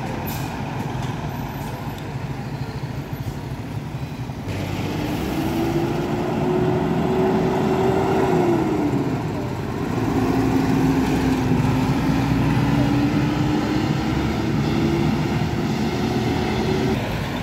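Heavy vehicle accelerating away, its engine whine climbing in pitch, dropping at a gear change about halfway, then climbing again through the next gear.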